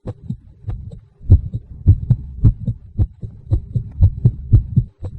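Heartbeat sound effect: a steady rhythm of low, deep thumps, about two a second, which builds suspense. It briefly cuts out about a second in and again near the end.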